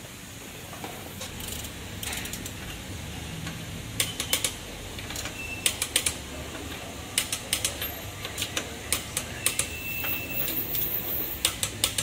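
Sharp metallic clicks in short groups of two to four from a long-handled hand wrench on a car wheel's lug nuts as they are tightened by hand, over a low steady workshop hum.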